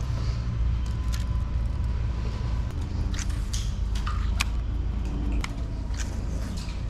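Low rumble of road traffic crossing the concrete bridge overhead, dying down about five seconds in, with sharp clicks and knocks scattered through it.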